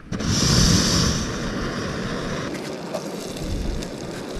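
MSR PocketRocket canister stove lit under a frying pan of butter: the gas catches with a sudden whoosh, loudest for the first second, then settles into a steady burner hiss.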